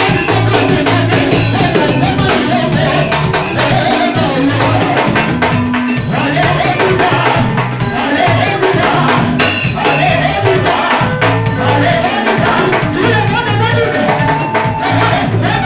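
Live gospel praise band playing loudly: a woman singing lead through a microphone over electric bass guitar and a drum kit, with a steady dance beat.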